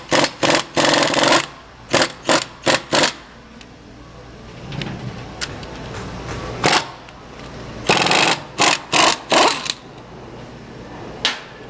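Pneumatic impact wrench run in short trigger bursts, loosening the bonnet nuts of a 4-inch mud gate valve. A quick string of bursts in the first three seconds, a pause, then more bursts from about seven to ten seconds in and one more near the end.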